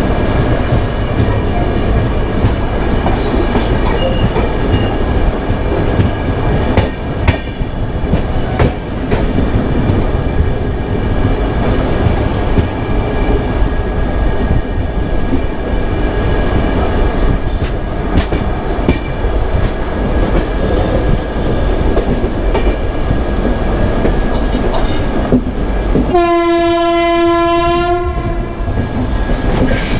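Express passenger train running at speed, heard from the coach window: a steady rumble with the wheels clicking over rail joints. Near the end, the locomotive horn sounds one steady blast of about two seconds.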